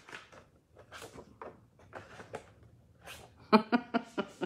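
A plastic paper punch and a stamped cardstock card being handled, giving soft rustles and light clicks, with a short run of pitched, voice-like sounds about three and a half seconds in.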